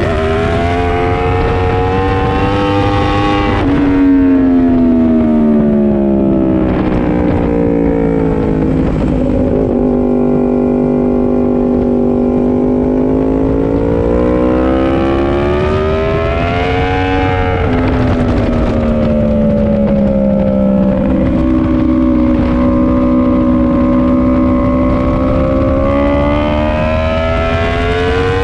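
Sportbike's inline-four engine heard from the rider's seat at speed on a track. The revs climb and drop sharply with an upshift a few seconds in, then fall away and hold low through a slower stretch. Near the middle they climb hard again through further upshifts.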